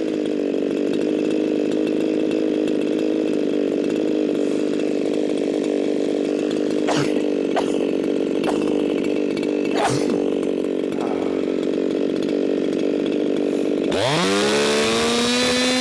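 Echo 4910 two-stroke chainsaw idling steadily while warming up, with a few light clicks in the middle, then revved up sharply to a high, held full-throttle scream near the end. At full throttle it is running way too lean, jumping to about 15,000 RPM.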